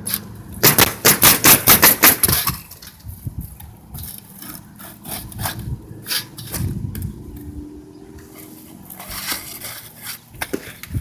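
A quick run of about eight sharp knocks, some five a second, followed by scattered lighter clicks and knocks.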